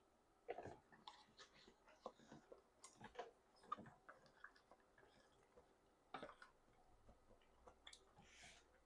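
Quiet chewing of jajangmyeon (black bean noodles): scattered wet mouth clicks and smacks at an irregular pace, with a short hiss near the end.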